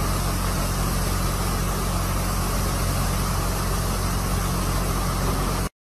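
Floodwater rushing steadily across a road, with the low, steady rumble of an idling engine underneath. It cuts off abruptly near the end.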